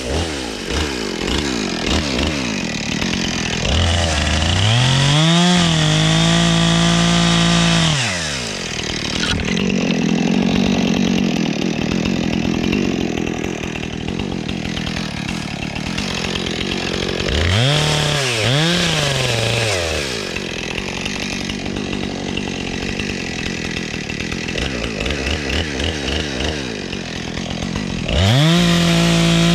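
Husqvarna 460 two-stroke chainsaw idling, then revved to full throttle and cutting into a tree trunk under load. Between cuts it is blipped twice in quick succession, and it is revved high again near the end.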